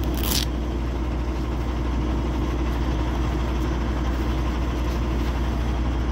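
Semi-truck's diesel engine idling steadily while it warms up, heard from inside the cab. A short rustle comes right at the start.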